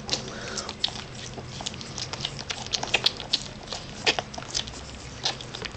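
Three-week-old beagle puppies suckling at their mother: small irregular wet smacks and clicks.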